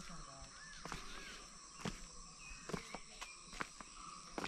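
Garden ambience of steady insect chirring with a few short bird chirps, and the walker's footsteps as soft irregular clicks about every half to one second.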